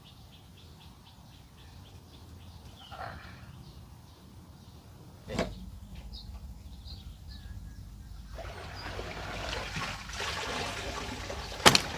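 Quiet outdoor pondside ambience with a few faint bird chirps. A broad hiss rises about two-thirds of the way through, a soft click comes about five seconds in, and a sharp, loud click sounds near the end.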